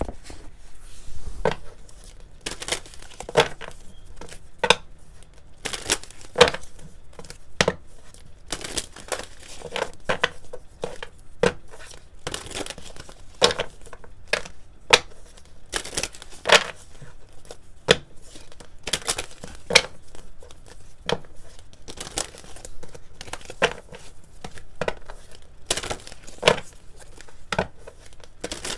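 Deck of tarot cards being shuffled by hand: repeated short slaps and snaps of cards against each other at an uneven pace, about one or two a second.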